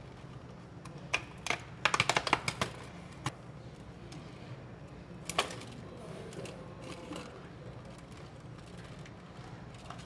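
Paperboard ice-cream box being torn open by hand: a quick run of sharp crackling clicks about two seconds in, and another single click a few seconds later, over a steady low hum.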